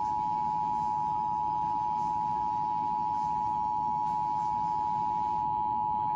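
Emergency Alert System attention signal: the two-tone 853 and 960 Hz alert tone, held steady at one level, with faint radio hiss beneath.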